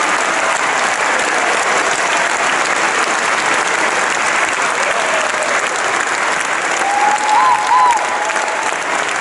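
Large audience applauding steadily in a concert hall. A short cheer from the crowd rises above the clapping about seven seconds in.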